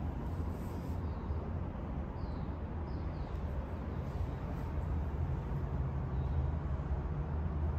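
Steady low background rumble, with a few faint, short high chirps scattered through it.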